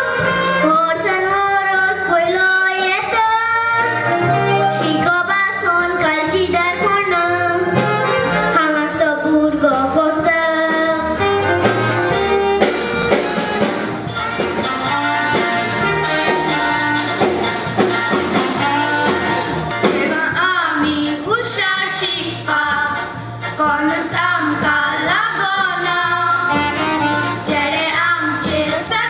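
Konkani tiatr song: a voice singing a melody over musical accompaniment, with a drum beat coming in strongly about halfway through.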